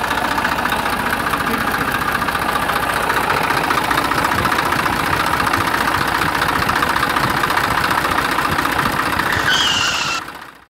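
Tractor engine running steadily with a fast, even chugging beat. Near the end a short high whine rises over it, then the engine sound fades out.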